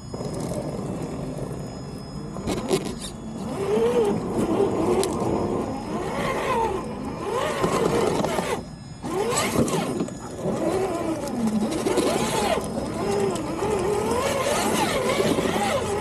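Electric motor and drivetrain of a Traxxas TRX-4 RC crawler whining, its pitch rising and falling over and over as the throttle is worked.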